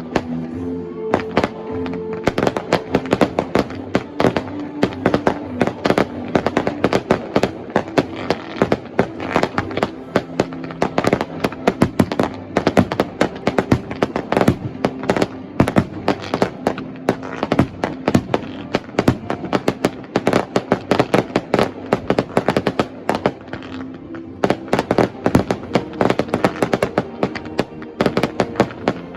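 Rapid barrage of fireworks bursting, many bangs per second overlapping with no break, over music playing underneath.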